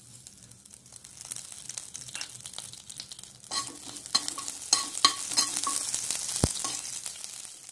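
Mustard seeds spluttering in hot coconut oil, with curry leaves and dried red chillies sizzling: a dense crackle of sharp pops that builds up after the first second and is busiest in the second half. This is the tempering, and the spluttering shows the oil is hot enough.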